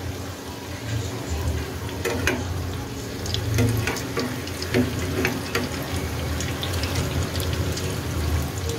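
Veg lollipop balls deep-frying in hot oil in a kadai, sizzling steadily with scattered crackles that cluster in the middle. A slotted spoon stirs and turns the balls in the oil.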